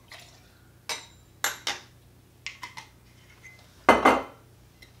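Glass liquor bottles and a metal jigger handled on a granite countertop while a drink is mixed: several short clinks and taps, then a louder knock about four seconds in.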